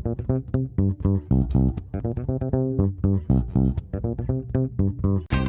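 Instrumental intro music led by a plucked bass-guitar line of short, quick notes; a fuller, brighter guitar part comes in near the end.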